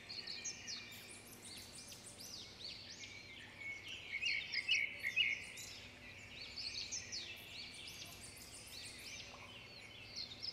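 Many small birds chirping and twittering at once in a dense, overlapping chorus of quick high chirps. It is loudest about four to five seconds in.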